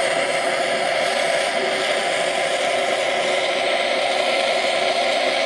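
Oxy-fuel torch flame blowing steadily into a melting dish, heating it to a red glow to fuse the glaze. The flame makes an even rushing noise with no change in pitch or strength.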